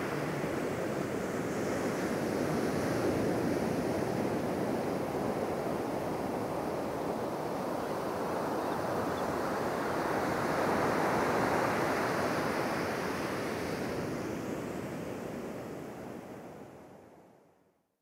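Ocean waves washing in: a steady rushing that swells twice, then fades out near the end.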